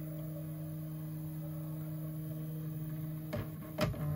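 Original Prusa MK3S 3D printer running with a steady hum as its heated bed travels to the back under the Y-axis stepper motor at the start of a print. Two short knocks come near the end.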